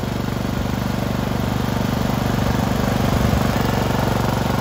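Small petrol engine running steadily with a fast, even pulse, getting a little louder in the second half.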